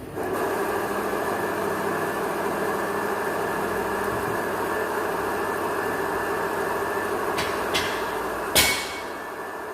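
A motor-driven machine switches on abruptly and runs steadily, with two light clicks and then one sharp knock near the end.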